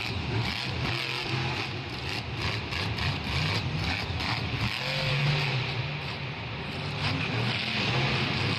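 Monster truck's supercharged V8 running and revving, its pitch rising and falling and stepping up about five seconds in, with a few short knocks in between.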